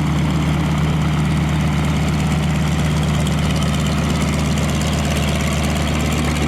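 North American AT-6 Texan's nine-cylinder Pratt & Whitney R-1340 radial engine and propeller running steadily at low taxiing power.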